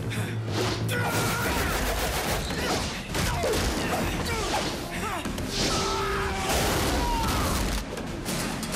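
Film fight soundtrack: a rapid string of hit and crash sound effects from a brawl with furniture, over music.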